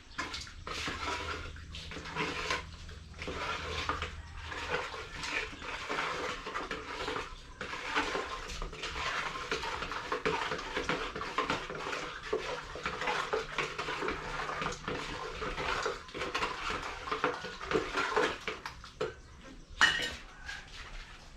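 Shovels scraping and turning a concrete mix by hand, a continuous irregular grinding clatter of steel blades on sand and gravel, with one sharper clank near the end.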